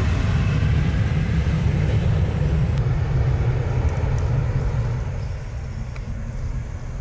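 Jet engines of a Boeing 737 at takeoff thrust during its takeoff roll on a wet runway: a loud, deep, steady rumble that eases off about five seconds in as the aircraft lifts away.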